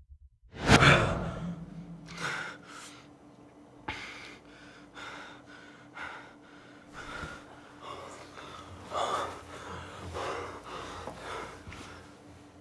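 A man's sharp gasp about a second in, followed by a string of heavy, breathy gasps and pants about a second apart, over a faint steady hum.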